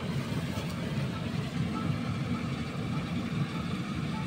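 Combine harvester running steadily as it cuts wheat: an even, low engine drone with no break.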